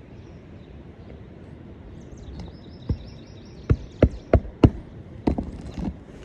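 Hammer driving roofing nails into a roof shingle: a run of about seven sharp knocks starting about three seconds in, several in quick succession.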